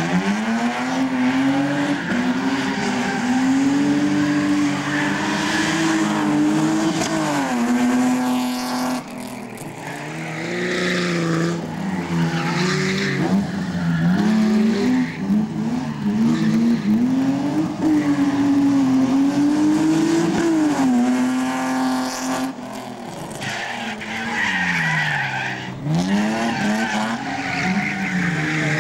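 A slalom competition car's engine revving hard, its pitch climbing and dropping again and again as the driver works the throttle and gears through the cones, easing off briefly twice. Tyres squeal in the tight turns.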